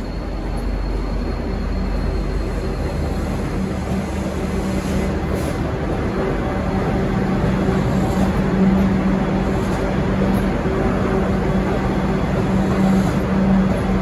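Passenger carriages of a locomotive-hauled V/Line train rolling past, wheels running on the rails, with a steady rumble and a steady hum that grows louder from about four seconds in.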